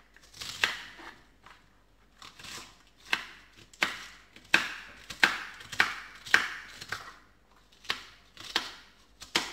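Kitchen knife finely chopping cabbage on a plastic cutting board: crisp crunches through the leaves, each ending in a tap of the blade on the board, at an uneven pace of about one to two cuts a second, with a brief pause about a second in.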